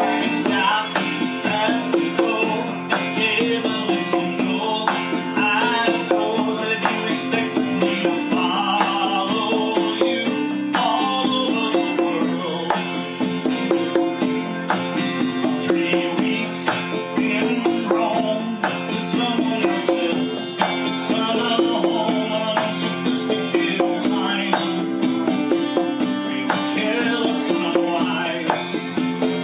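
A pair of congas played by hand, layered over a recorded acoustic-guitar song with bass.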